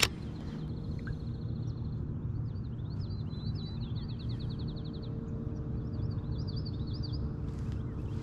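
Birds chirping and trilling over a steady low outdoor rumble, with one sharp click right at the start.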